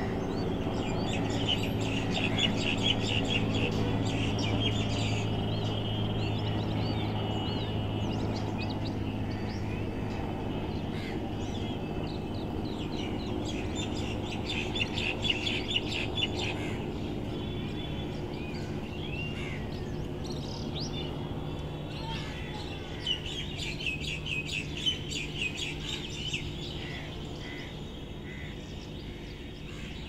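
Small birds chirping in bursts of rapid trills over the steady hum of a helicopter flying overhead, the hum slowly fading.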